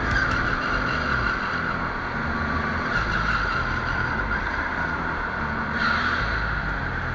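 Go-kart engine running at speed, heard from onboard the kart, with a brief swell in the engine note about six seconds in.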